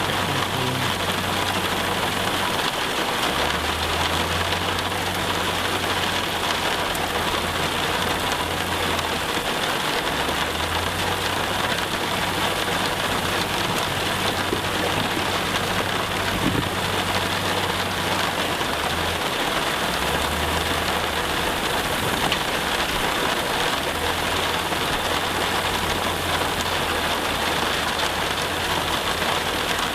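Steady rain falling, with the low hum of a heavy-machinery engine underneath that comes and goes in stretches of a few seconds.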